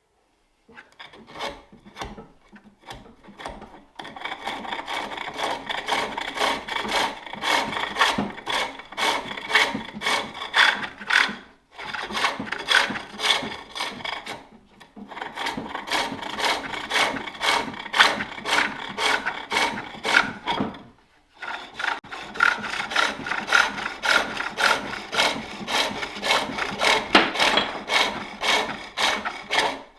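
Tool cutting a wooden bowl on a spring-pole lathe: a fast rhythmic scraping, about three strokes a second, following the back-and-forth of the pole-driven work. It begins with a few scattered strokes, then runs steadily with brief stops about a third, half and two-thirds of the way through.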